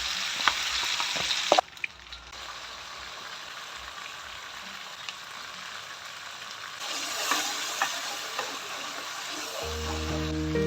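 Food sizzling as it fries in a pan, with a few sharp clinks of a utensil early on. The sizzle drops quieter about one and a half seconds in and grows louder again later. Background music comes in near the end.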